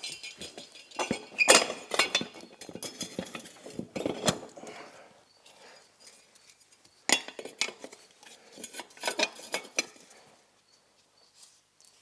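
Metal tools and hardware clinking and clattering, in two bouts of quick clinks: one at the start lasting a few seconds, another starting about seven seconds in.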